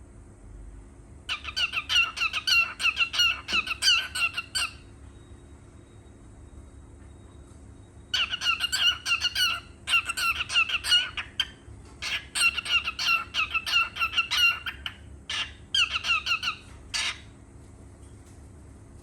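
Cockatiel chattering in fast strings of short, repeated chirps: three runs of a few seconds each with pauses between, then a few short single calls near the end.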